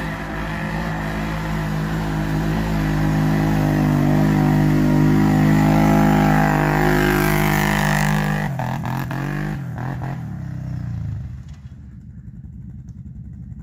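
ATV engine held at steady high revs as the quad drives up toward and past, loudest about six seconds in, then dropping away sharply after about eight seconds.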